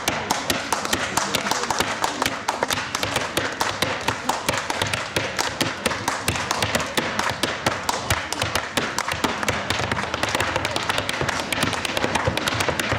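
Irish dancer's hard shoes beating rapid, dense rhythms of clicks and stamps on a wooden stage floor.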